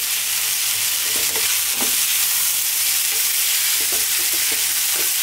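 Cold basmati rice with mushrooms and onions frying in oil in a wok on maximum heat: a steady sizzle, with a spatula scraping and tossing the rice against the pan a few times.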